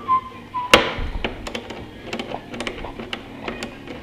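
Irregular clicks and taps of a motorcycle's plastic fairing panel and its fasteners being worked loose, with one loud snap about three quarters of a second in.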